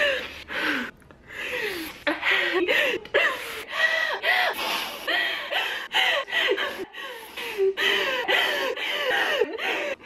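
A woman sobbing hard: a run of short wailing cries, each bending in pitch, broken by sharp gasping breaths as she struggles for air.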